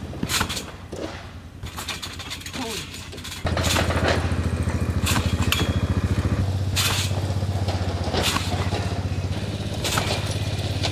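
Trampoline bouncing: the mat and springs sound with a crisp stroke about every second and a half. A small engine runs steadily under it, coming in louder about three seconds in.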